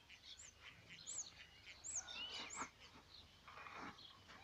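Small birds chirping faintly: a handful of short, high chirps about a second apart, with a brief rustle about three and a half seconds in.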